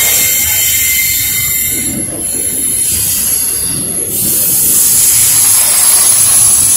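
Double-stack intermodal freight train's well cars rolling past, with a steady rumble of wheels on rail and high, steady wheel squeal, getting louder about four seconds in.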